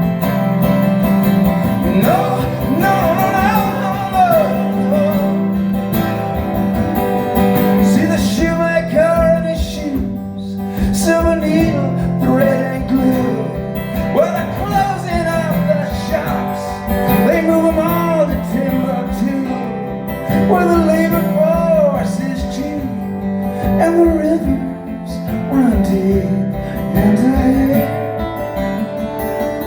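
Live song performance: strummed acoustic guitar with a male voice singing a wavering melody over it.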